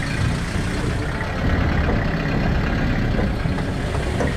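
4WD vehicle engine running steadily at idle, a low rumble.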